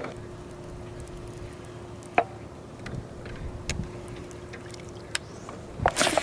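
Small jon boat on the water: a steady low hum with scattered light clicks and knocks of gear handling, and a louder rush of water-like noise near the end.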